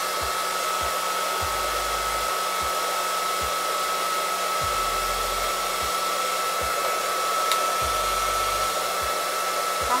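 Handheld hair dryer running steadily, blowing into a cut plastic bottle that holds a lock of hair, a continuous rush of air with a steady high whine.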